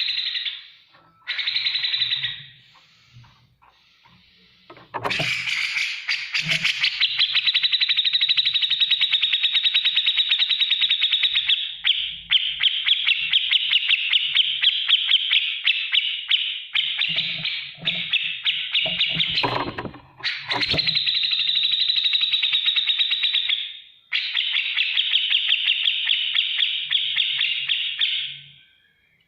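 Grey-cheeked bulbul (cucak jenggot) singing: a few short calls, then long runs of very rapid ticking chatter, each lasting several seconds with brief breaks between them.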